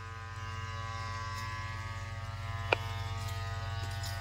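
Steady buzzing hum of a small motor or engine running at a constant speed, with one short click about two and a half seconds in.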